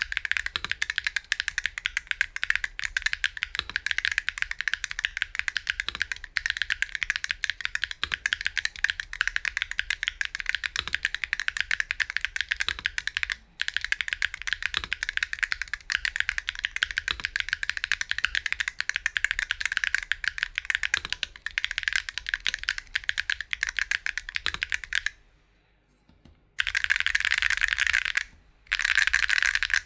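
Fast continuous typing on a custom 60% mechanical keyboard with Geon Raptor HE v2 magnetic switches, a carbon-fibre plate, PCB snap mount and no foam: a dense stream of keystroke clicks. About 25 seconds in the typing pauses briefly, then resumes in short bursts.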